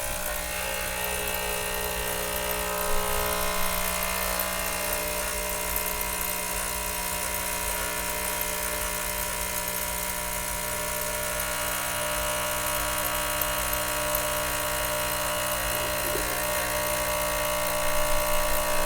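Ultrasonic cleaner running with a load of small vise parts in hot water: a steady buzzing hum with an even hiss over it.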